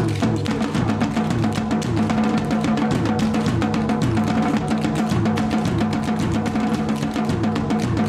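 Tap dancers in steel-tapped work boots hammering out fast, dense tap rhythms over loud drum-heavy backing music.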